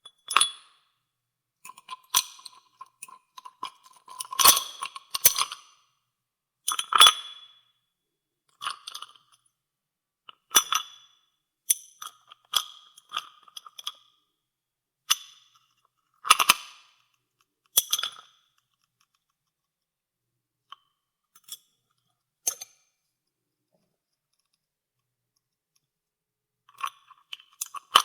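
Ice cubes clinking and ringing against a glass as ice water is stirred: single sharp clinks about every one to two seconds, pausing for several seconds after about the 19-second mark and resuming near the end.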